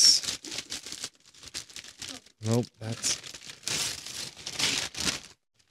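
Thin, cheap wrapping paper being torn and crumpled as a present is unwrapped: a sharp tear right at the start, then a run of crinkling rustles that stops shortly before the end.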